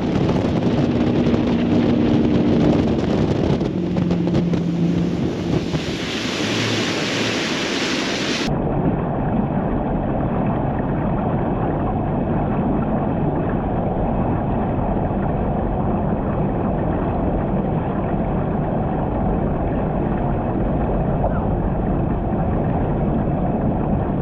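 Boat running on the lake: steady wind rush over the microphone with water and motor noise beneath. About eight seconds in the sound changes abruptly and turns duller, with more low rumble.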